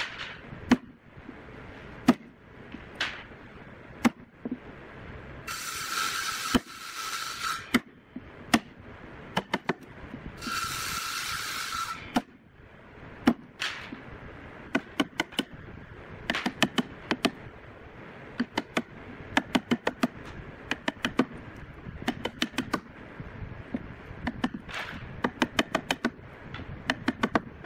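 A wooden block used as a mallet knocking on a chisel to cut a hinge mortise in wood: sharp single knocks at first, later quick runs of several strikes a second. Twice a hiss lasting a second or two.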